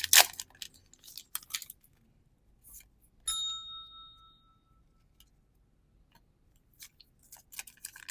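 A few soft clicks and rustles of trading cards being handled, and about three seconds in a single bright metallic ding that rings out for about a second.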